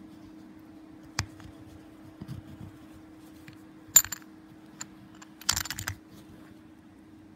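Small metallic clicks and taps from the stainless-steel case of a 1948 Breitling chronograph being handled and turned over in gloved fingers: a sharp click about four seconds in and a quick rattle of clicks a little later.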